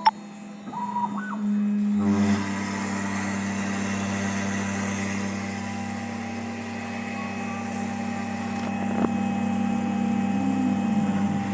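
Small desktop CNC milling machine running, with a steady motor hum and whine. About two seconds in a deeper hum joins and it gets louder, as more of the machine's motors come on.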